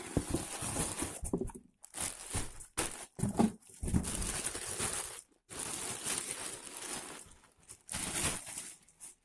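Cardboard box and plastic packaging rustling and crinkling in irregular bursts with brief pauses, as a plastic-wrapped horse rug is pulled out of the box and handled.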